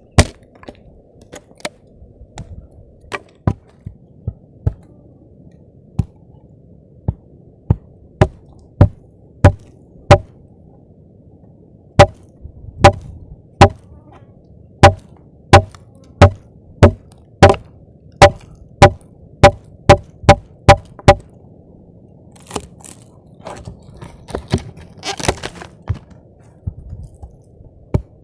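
Wood being chopped with a hand blade: sharp chopping strikes, scattered at first, then a steady run of about two a second through the middle, followed by a few seconds of rustling and crackling near the end.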